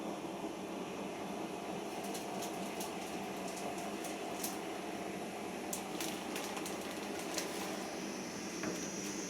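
Siemens iQ front-loading washing machine running with a steady whir in the stage after the main wash, with scattered light clicks and ticks through the middle.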